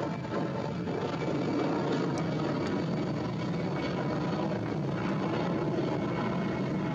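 Jet airliner engines running: a steady, loud rush of engine noise with no breaks.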